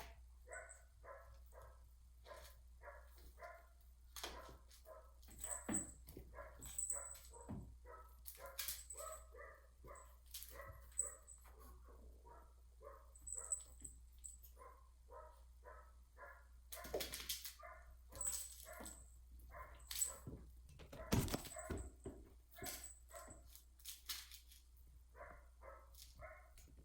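A cat playing with a toy mouse: many short squeaks in quick runs throughout, mixed with sharp knocks and scuffles, and a few brief high-pitched chirps.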